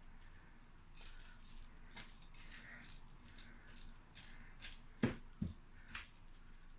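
Lettuce seeds rattling as they are shaken out and scattered over the soil, in repeated short rasping shakes, with two light knocks about five seconds in.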